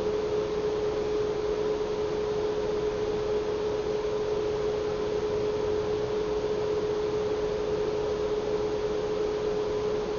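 Steady background hum: one constant mid-pitched tone over an even hiss, unchanging throughout.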